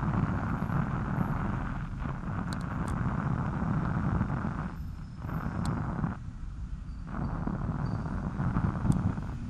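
Wind buffeting the microphone of a helmet-mounted action camera on a moving bicycle: a steady low rumble that eases briefly twice around the middle.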